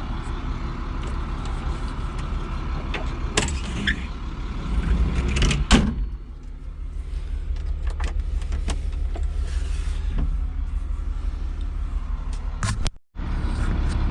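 Heavy equipment engine running steadily, with scattered knocks and clanks from the machine working, and the sound cutting out for a moment near the end.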